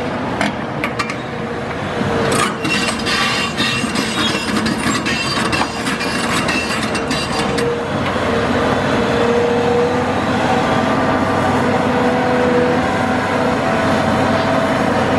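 Cat 374F UHD demolition excavator's diesel engine and hydraulics running hard. Over the first half there are many sharp cracks and crunches as concrete is broken and rubble falls. After that the machine noise steadies into a hum with a held whine in it.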